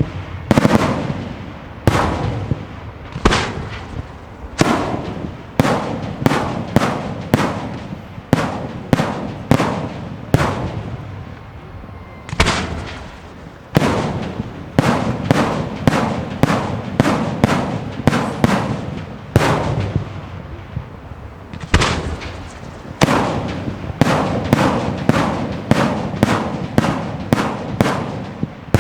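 Pirotecnica Pellicani fireworks going off in a rapid series of loud bangs, about one to two a second, each followed by a rumbling echo. The barrage eases briefly twice before picking up again.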